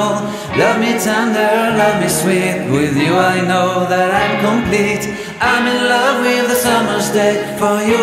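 Background music: a song with a singing voice over held low notes that change every second or two.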